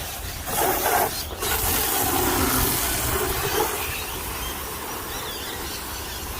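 Wind rumbling and hissing on the microphone, a steady noisy rush with a louder gust about a second in.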